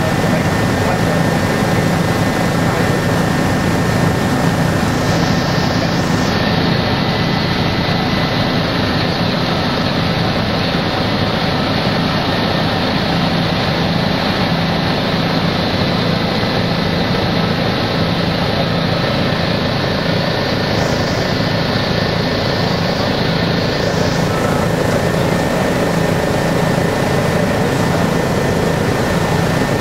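Helicopter in flight heard from inside the cabin: a loud, steady drone of engine and rotor.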